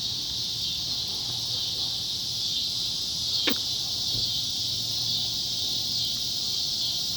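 Steady, unbroken chorus of insects. A single brief squeak falling sharply in pitch about three and a half seconds in.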